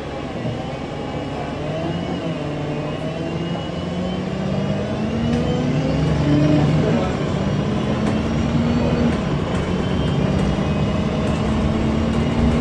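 Alexander Dennis Enviro 200 MMC bus heard from inside the saloon as it accelerates: the diesel engine's note climbs, dips about seven seconds in, then climbs again, over steady road noise.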